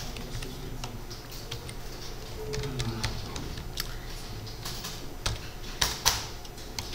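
Typing on a computer keyboard: irregular key clicks, with two louder key strikes about six seconds in.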